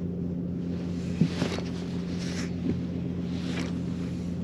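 Bow-mounted electric trolling motor humming steadily, with three short hissing swishes about a second apart.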